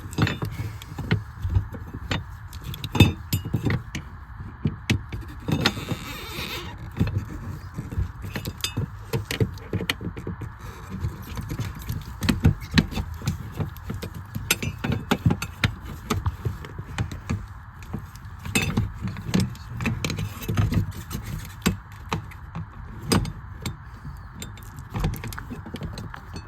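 Hand tools and metal parts clinking, clicking and knocking at irregular intervals while fuel-line clamps and fittings on a fuel pump are worked loose.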